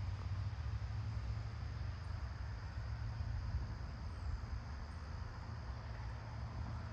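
Steady outdoor ambience on a rainy morning: an even hiss over a constant low rumble, with no distinct events.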